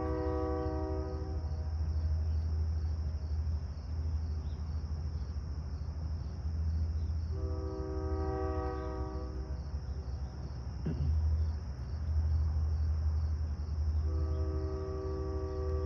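Train horn sounding a chord of several tones in long blasts: one dies away about a second in, another lasts a couple of seconds around the middle, and a third begins near the end. Under it runs a steady low rumble and a faint, constant insect trill.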